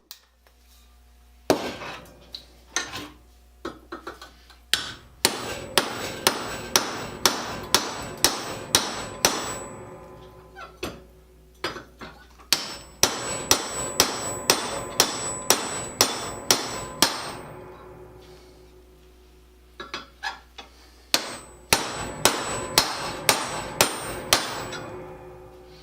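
A hammer peening a steel rivet to set it in the treadle parts: runs of sharp, ringing metal-on-metal blows at about three a second, broken by short pauses.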